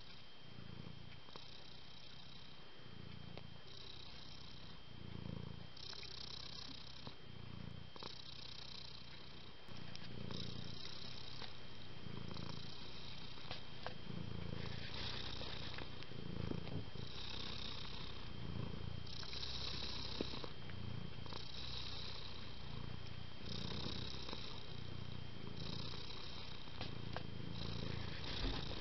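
A domestic cat purring close up: a slow rhythmic rumble that changes with each in- and out-breath, about one cycle every one and a half to two seconds. It grows a little louder about ten seconds in.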